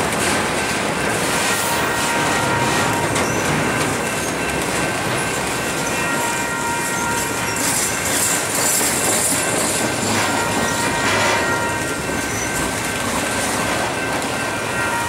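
Double-stack container well cars of a freight train rolling past at speed, a steady rumble with a high, steady wheel squeal ringing over it. A brief swell of hissing comes about eight seconds in.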